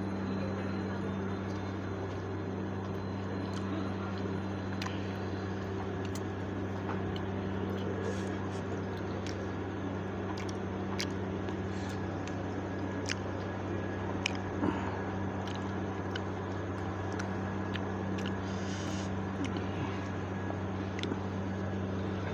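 Someone biting and chewing fried chicken cheese balls, with scattered small clicks over a steady low hum.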